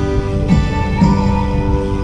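Background music: a song with strummed acoustic guitar, a new chord struck about every second, between sung lines.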